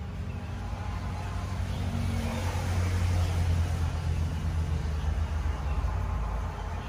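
Low engine rumble of a motor vehicle, swelling to its loudest about three seconds in and easing off near the end.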